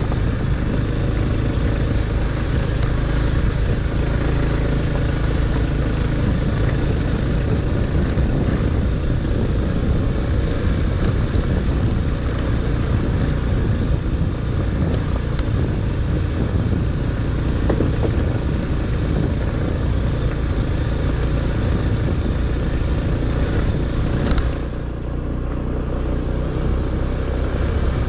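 Motorcycle riding along a rough dirt track: the engine runs steadily under a thick, even rumble of wind and road noise. About 24 seconds in the upper hiss drops away and it gets a little quieter.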